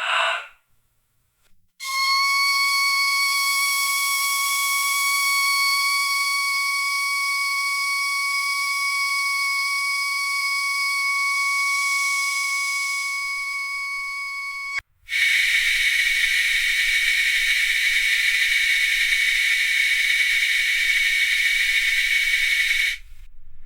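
A steady high-pitched whistle with overtones, held for about thirteen seconds, then after a sudden break a loud, steady hiss for about eight seconds that cuts off near the end. A short burst sounds at the very start.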